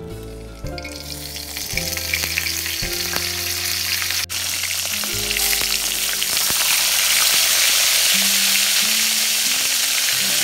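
Two small whole fish frying in hot oil in a wok, a steady sizzle that starts about a second in and grows louder over the second half.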